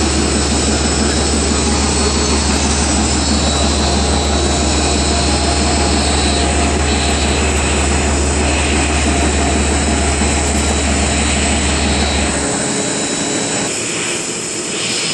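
CNC drilling machine milling the edge of a steel plate: loud, steady machining noise with a deep hum underneath that drops out about twelve seconds in.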